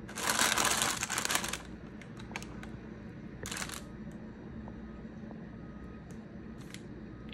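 A loud rustle lasting about a second and a half, a shorter rustle near the middle, and scattered light clicks and taps over a low steady room hum.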